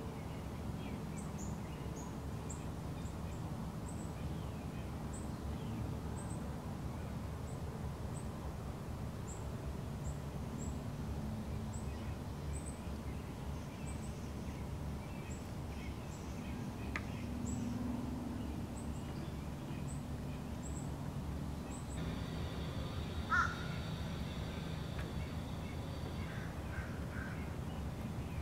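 Wooded-yard ambience: a steady low rumble under high, thin chip notes repeated about once a second. A single louder bird call comes about three-quarters of the way through.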